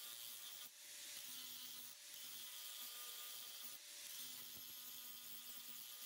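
Faint steady sound of an angle grinder's disc grinding a square steel bar to round over its bottom edge: a hiss over the motor's hum. It dips briefly about three times as the disc eases off the steel.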